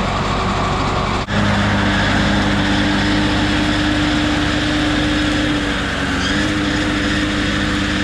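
Tractor engine running steadily under load, with a brief sudden break about a second in.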